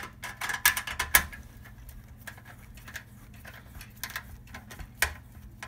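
Sharp metallic clicks and knocks as a steel-cased magnetic fluorescent ballast is fitted and fastened into the sheet-metal fixture channel. A quick run of them comes in the first second or so, then single clicks every second or so.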